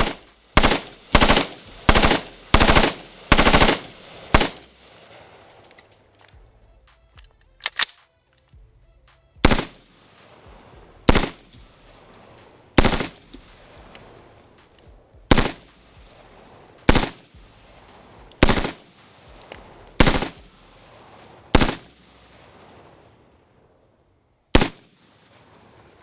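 AR-style rifle fired semi-automatically through a Dead Air Pyro muzzle device in its linear-comp setup: a quick string of about seven loud shots, then single shots about every second and a half.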